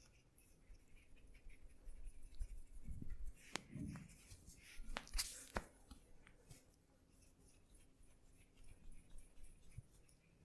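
Faint massage sounds: hands rubbing and pressing on skin, with a cluster of four or five sharp clicks around the middle.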